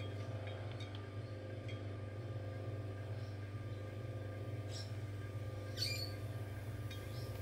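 Electric potter's wheel motor humming steadily while the pot is trimmed, with two short high squeaks about five and six seconds in.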